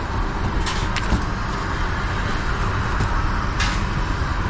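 Steady rushing cabin noise inside an Airbus A380, the airliner's air system and hull noise, with a few short clicks.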